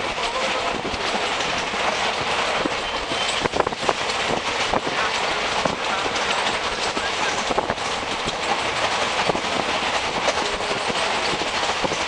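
Moving train heard from inside a carriage: a steady rushing noise with irregular clicks and clatter of the wheels running over the rail joints.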